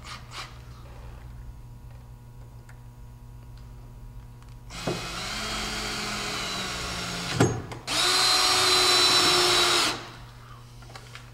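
Bosch cordless drill/driver driving a mounting screw for a metal switch box into the bed. About five seconds in, it runs steadily for a couple of seconds, a sharp click follows, then a louder, higher-pitched run of about two seconds that stops suddenly.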